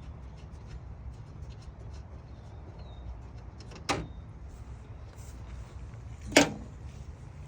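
Hand tools working on a car's front end: faint, irregular light clicks, then two sharp metallic clacks about four and six and a half seconds in, the second louder. A steady low rumble runs underneath.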